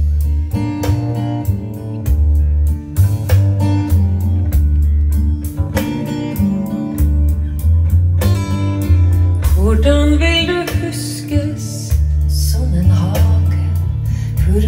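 A song with plucked guitar and deep bass notes. A voice starts singing about ten seconds in.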